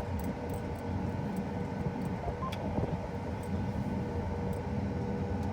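Heavy harvest machinery's diesel engine running steadily, a low even drone with a steady hum, and a few faint clicks.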